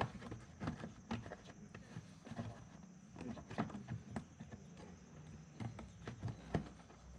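Irregular light clicks and knocks, a few a second, of hand tools and parts being worked in a car door.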